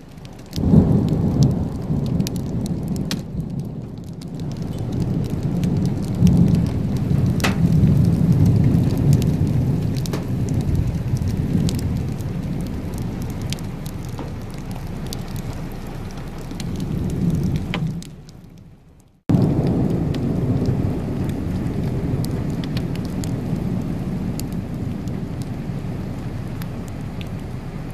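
Rain falling with long, low rolling thunder. The rumble swells and slowly dies away, breaks off about two-thirds of the way through, and a second long roll follows at once.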